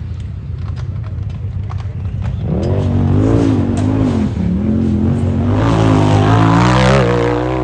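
Off-road race vehicle's engine on a hill climb: a low rumble at first, then revving hard with its pitch rising and falling over and over, getting louder toward the end.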